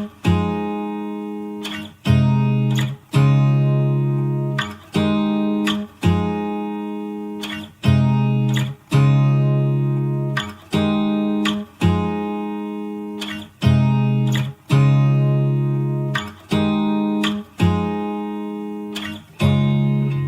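Background music: a guitar playing chords, each struck and left to ring out, about one a second.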